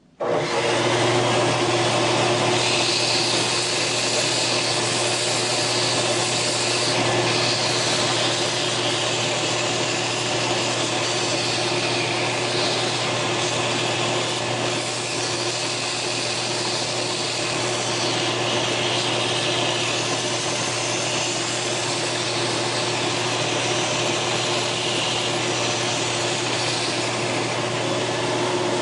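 Belt sander running with a steady motor hum while a part is pressed against the abrasive belt and moved back and forth across it, giving a continuous grinding hiss as the surface is smoothed and the corners rounded.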